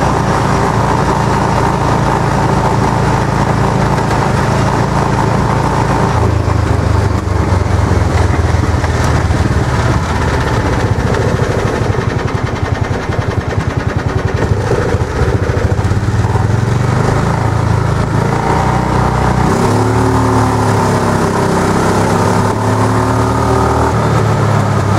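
Golf cart's swapped-in Honda GX single-cylinder four-stroke engine running under way with its governor bypassed, loud and steady, with road and wind noise. The engine speed changes about six seconds in and shifts again, with a short glide in pitch, near twenty seconds.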